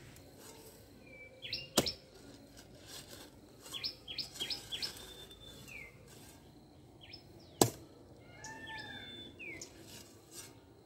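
Two sharp strikes of a long-handled digging hoe into hard soil, about six seconds apart, while digging out cassava roots. Small birds chirp in short high calls between the strikes.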